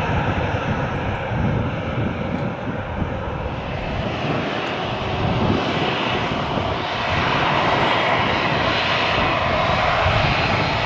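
Boeing 737 jet engines running as the airliner taxis. The steady rushing engine noise grows louder about seven seconds in.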